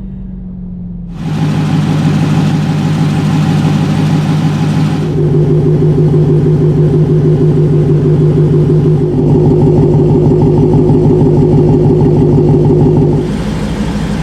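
Supercharged car engine running at a steady pitch and held there. It gets louder in a jump about a second in and steps up again around five seconds, then eases back about a second before the end.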